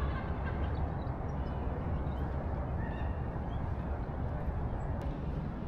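Steady low rumble of outdoor background noise, with a few faint, short, high chirps over it.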